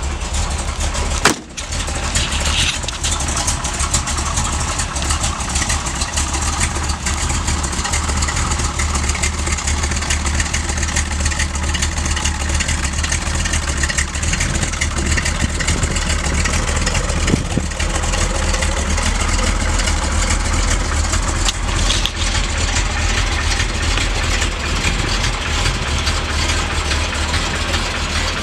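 1968 Corvette's 427 big-block V8, with three two-barrel carburettors, idling steadily. A click and a brief drop in level come about a second in.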